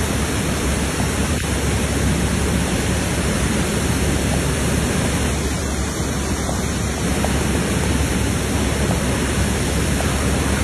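Fast-flowing floodwater rushing in a steady, loud, unbroken noise.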